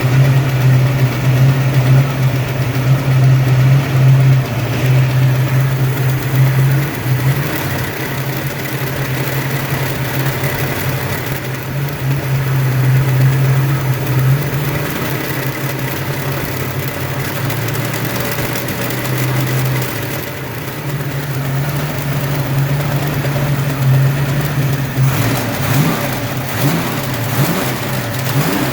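Ford 302 small-block V8 running at about idle, with engine speed wavering a little near the end. It carries a mystery knock that the owners cannot place: possibly piston slap, a broken wrist pin or the timing chain. The noise persists with the belts off and with each plug wire pulled.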